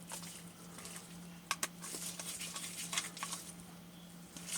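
A few light clicks and taps of a small Phillips screwdriver and plastic housing parts being handled while screws are snugged down, over a steady low hum.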